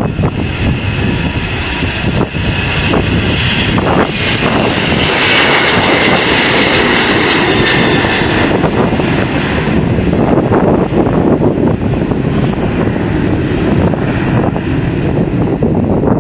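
Boeing 737-800's CFM56-7B turbofan engines at takeoff thrust: a loud jet rumble with a high whining buzz. The whine is strongest about five to seven seconds in as the jet lifts off and passes, then fades, leaving a lower rumble as it climbs away.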